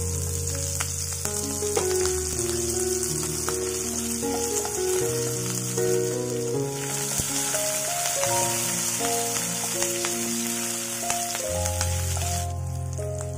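Hot oil sizzling as chopped green chillies fry with dal and curry leaves in a tempering, stirred with a wooden spatula, with a few light clicks; the hiss gets louder partway through and stops near the end. Background music with a melody and bass plays throughout.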